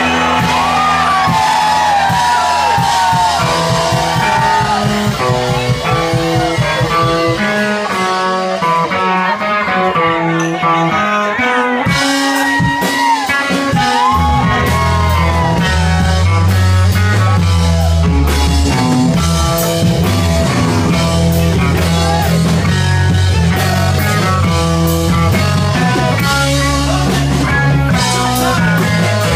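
Live rock band playing: electric guitars and a lead singer. The low end thins out for a few seconds about a third of the way in, then comes back in heavily about halfway through.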